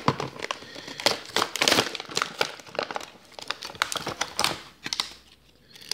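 Paper and plastic packaging being handled and unfolded, crinkling in irregular rustles and crackles, busiest in the first two seconds and dying away near the end.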